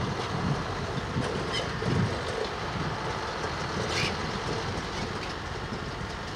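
Distant steady rumble of an Ilyushin Il-80 (Il-86VKP) airliner's four jet engines as the aircraft taxis slowly at low power.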